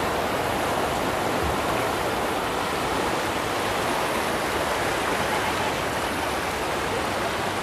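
Swollen, muddy Ganga floodwater rushing steadily over submerged ghat steps. The river is in spate from continuous rain in the hills.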